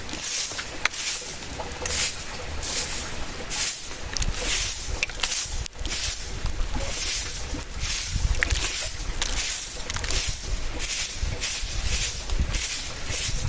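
Strong wind blowing around the camp, with a low rumbling buffet and repeated hissing surges, like gusts rushing through foliage, about once or twice a second.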